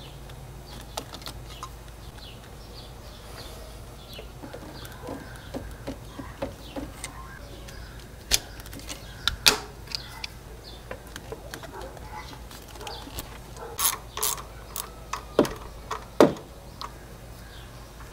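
Hand tools and engine parts clicking, clinking and knocking irregularly as work goes on in the engine bay, with several louder knocks in the second half.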